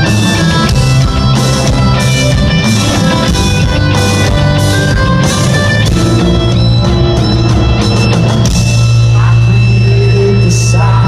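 Hard rock band playing live and loud: distorted electric guitars over bass and a drum kit, with a sustained melodic guitar line and no sung words.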